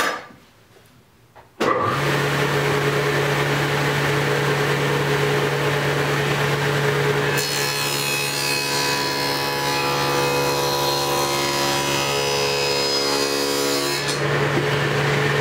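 Table saw fitted with a dado stack, which starts about a second and a half in and then runs with a steady hum. From about the middle to near the end the blade cuts a 3/4-inch groove along a pine board, adding a harsher cutting sound, and then it runs free again.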